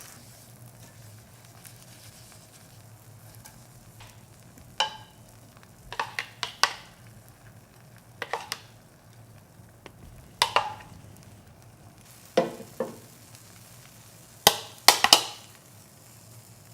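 A cooking utensil knocking and scraping against a frying pan in short clicky clusters, about eight times, as a rolled egg omelette is pushed and rolled, the loudest near the end. Between them, faint sizzling of egg cooking over low heat.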